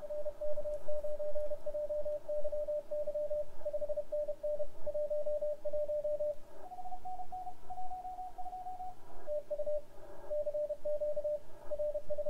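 Morse code (CW) received off air on the 20-metre band by an ICOM IC-7610 transceiver: a keyed on-off beeping tone. For about two seconds, from roughly six and a half seconds in, a second station keys at a slightly higher pitch.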